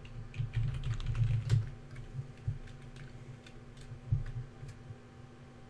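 Computer keyboard keystrokes tapped one after another, with a couple of louder strokes, as a password is typed at a sudo prompt and entered. The clicks thin out near the end.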